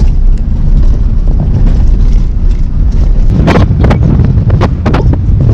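Vehicle driving on a dirt road, a loud steady rumble with wind buffeting the microphone. A short cluster of sharp knocks comes about three and a half seconds in.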